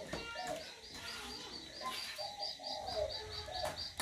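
Birds calling: a fast, even series of short high chirps, about five a second, starting about a second in, with a few lower falling calls among them.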